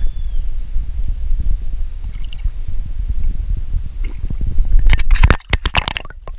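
Wind rumbling on the microphone, then about five seconds in a short burst of water splashing and knocks.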